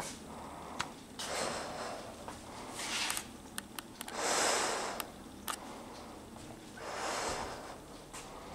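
A person breathing through a half-mask respirator: about four slow breaths, a second or so each, with a few light clicks and knocks between them.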